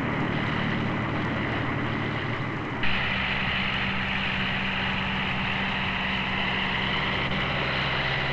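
Steady drone of a boat's engine running, with a hiss over it; the sound shifts abruptly to a slightly different, brighter drone about three seconds in.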